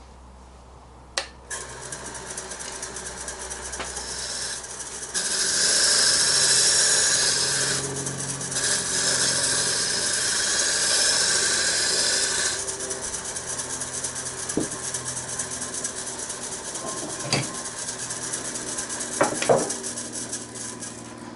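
Wood lathe spinning a wooden box while a turning tool cuts its edge round, a steady scraping cut that starts about a second and a half in. The cut is loudest for several seconds in the middle and lighter toward the end.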